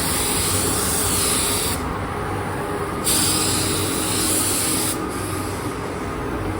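Paint spray gun hissing as it lays blue paint onto a motorcycle fuel tank, in passes: the spray cuts off about two seconds in, starts again about a second later, and cuts off again about five seconds in.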